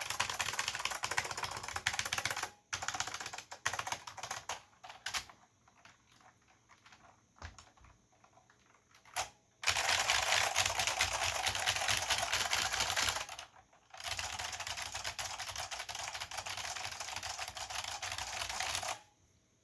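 Typing on a Chicony KB-5301 keyboard with Chicony buckling-spring switches: keys clicking and bottoming out with a hollow, light sound. Fast, steady runs of keystrokes give way to a few scattered single presses in the middle, then two long bursts of rapid typing that stop shortly before the end.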